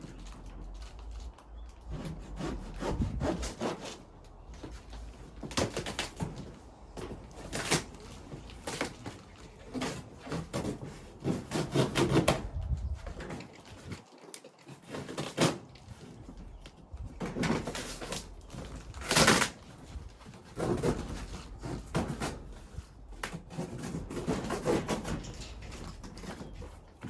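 A boxed dog crate being unpacked by hand: irregular scraping, rubbing and knocks of cardboard packaging and the crate being handled.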